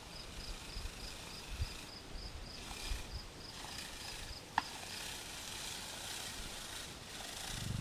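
An insect, cricket-like, chirping in a steady high pulse about three times a second over quiet outdoor ambience; the chirping stops about five seconds in, a single sharp click follows, and a low engine hum starts to rise at the very end.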